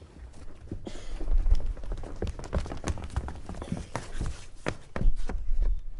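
Children's feet running and stamping on a stage floor: a quick, irregular patter of steps and knocks with heavier dull thuds about a second in and again near the end.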